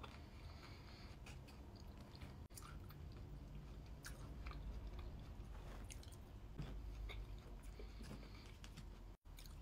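A person chewing a mouthful of Bircher muesli (soaked oats with fruit, nuts and seeds). The chewing is faint, with scattered small clicks.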